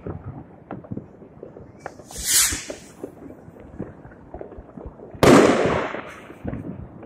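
New Year's fireworks: scattered firecrackers popping steadily, a firework rocket whooshing up about two seconds in, and then a sudden loud bang from a shell bursting close overhead about five seconds in, dying away over most of a second.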